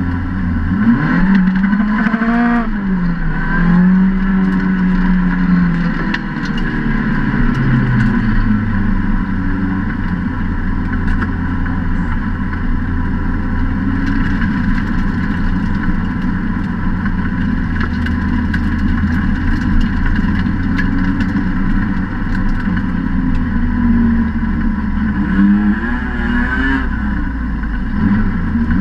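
Lotus Exige rallycross car's engine at racing revs, heard from inside the cockpit. The revs rise and fall several times, with a long steady stretch in the middle, and climb again near the end.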